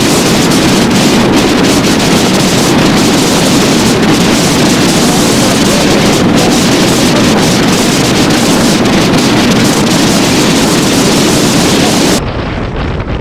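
Loud wind buffeting on the microphone of a motorcycle rider at road speed, a steady rushing roar that drops sharply near the end.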